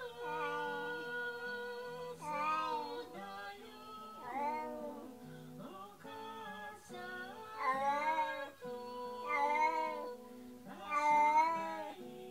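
A domestic cat meowing over and over in long, anguished cries, about one every two seconds. These are the calls of a cat left alone and upset while its companion cat is away.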